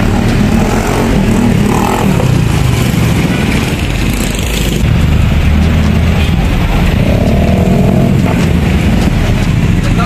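Street traffic made up mostly of small motorcycle and scooter engines passing close by, running steadily. One engine stands out for about a second, some seven seconds in.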